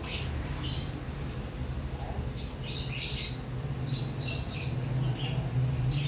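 Young parrot chick, held in the hand for eye drops, giving short scratchy squawks in quick clusters, over a steady low hum.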